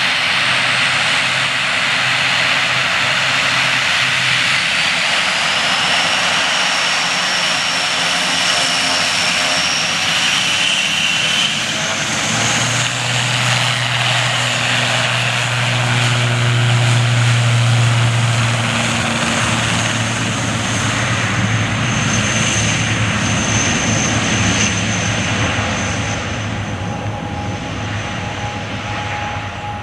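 ATR 72-600 turboprop's twin Pratt & Whitney PW127M engines and propellers running at high power, a loud steady rush with a low propeller hum that swells in the middle. Near the end it fades away.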